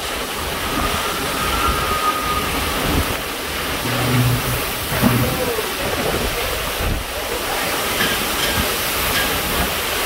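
Category 4 hurricane eyewall winds blowing with driving rain: a steady, loud rushing noise that rises and falls in gusts.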